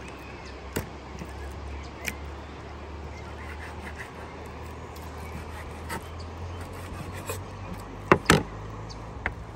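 Kitchen knife slicing raw beef into strips on a wooden cutting board, the blade knocking on the board every second or so, with two sharp knocks about eight seconds in. A steady low rumble runs underneath.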